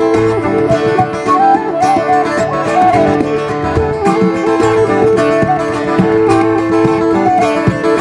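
A live acoustic band playing: a strummed acoustic guitar under a transverse flute carrying an ornamented melody.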